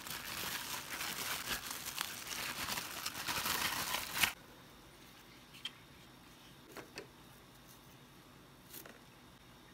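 Clear plastic packing bag crinkling as the vacuum's plastic attachments are pulled out of it, for about four seconds, ending with a sharp click. Then a few light clicks of plastic parts as the brush attachment is fitted onto the vacuum.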